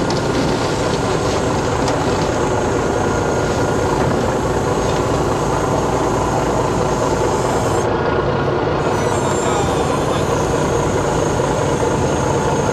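Crane machinery and its engine running steadily as the crane hoists a fish tub.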